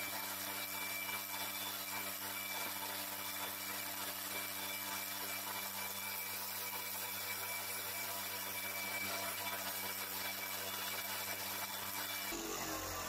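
Electric motor of a homemade wood lathe running at a steady hum as sandpaper rubs the spinning wooden lure blank. About a second before the end the hum stops and the motor winds down.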